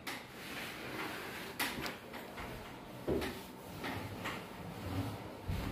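Scraping and light knocks as a metal curtain rod and the top of a door frame are handled and cleaned, with a few sharp clicks.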